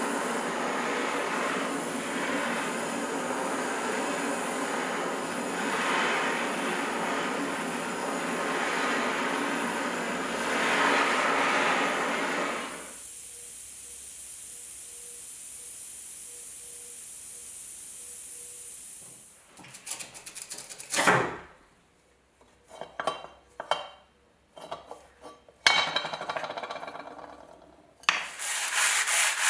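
Gas torch hissing steadily on a steel bayonet scabbard, dropping to a quieter hiss about thirteen seconds in. Later comes a scatter of sharp metal clinks and knocks as the scabbard is handled and set down, and near the end steady sandpaper rubbing on metal starts.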